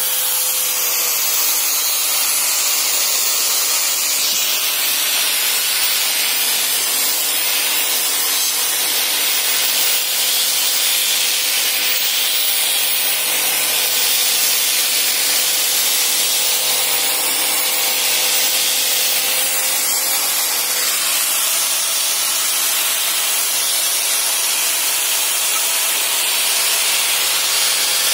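Buildskill electric angle grinder with a sanding disc running steadily, its motor whining as the disc sands a piece of carved wood.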